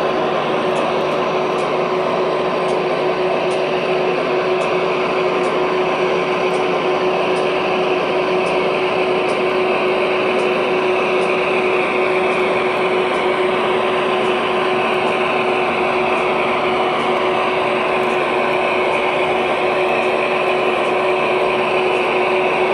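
O gauge model diesel locomotives running, with a steady electronic diesel engine sound and motor hum; a higher whine falls in pitch about midway. Faint regular ticks sound a little more than once a second.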